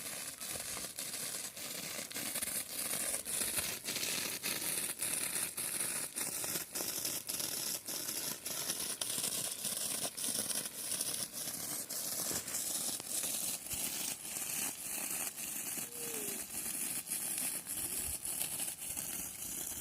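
Garden sprinkler clicking steadily, about two to three clicks a second, over the hiss of its water spray.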